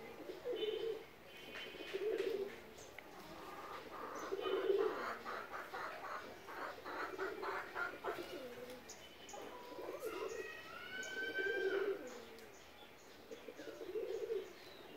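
A dove cooing over and over, a low coo every two seconds or so. Higher chirping joins it: a fast run of chirps in the middle and a rising call a little later.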